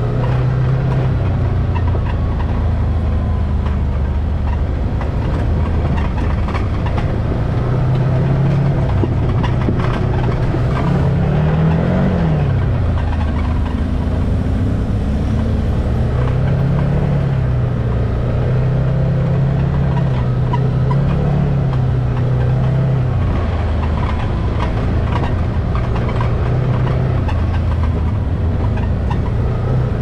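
Can-Am side-by-side UTV engine running as it drives along a dirt trail, its note rising and falling as the speed changes, with one brief rev up and back down about twelve seconds in. Steady road noise from the rough track runs under it.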